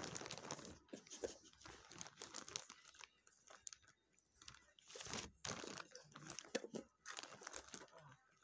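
Irregular crinkling and crunching from a snack bag being handled and a dog chewing hand-fed treats, with a lull of about two seconds in the middle.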